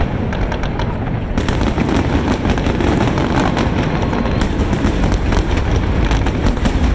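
Aerial fireworks bursting in quick succession: many sharp cracks and crackles over a continuous low rumble. The crackling thickens about a second and a half in.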